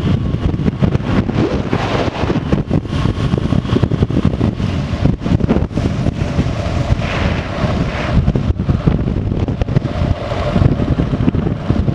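Wind buffeting a motorcycle-mounted camera's microphone at about 35 mph. The motorcycle's engine and tyre noise run underneath.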